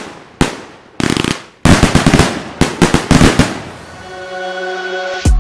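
Fireworks going off in the air: a string of sharp bangs with crackling, fading tails, coming faster in a rapid volley about two to three seconds in. Electronic music fades in over the last second or so.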